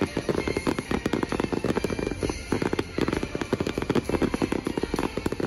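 Fireworks going off in a rapid, dense barrage of bangs and crackles, with a brief let-up about halfway through.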